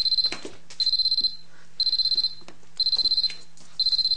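Electronic beeper sounding a high-pitched, fluttering beep about once a second, five half-second beeps in a row, over a faint low hum.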